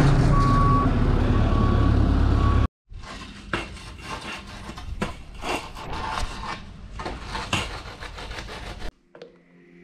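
Telehandler engine running with its reversing alarm beeping, short steady beeps about once a second; this cuts off abruptly about three seconds in. Then quieter, irregular scraping and knocking of hand tools working fresh concrete, followed by a short near-silence near the end.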